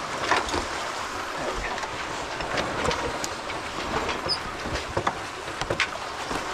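Sailboat under way: a steady rush of wind and water with irregular knocks and clicks from the boat and its rigging.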